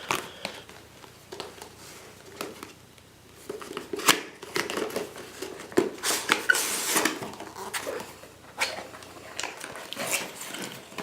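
Cardboard retail box being handled and opened: scattered clicks, scrapes and rustles, with a longer rustling scrape about six to seven seconds in.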